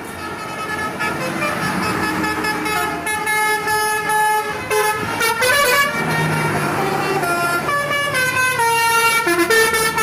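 Bus 'telolet' musical air horn playing a quick tune, several tones sounding together and jumping from note to note, starting about a second in over road noise.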